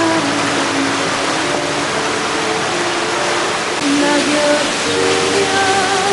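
Mountain stream water rushing steadily over rocks, with background music of held melodic notes playing over it.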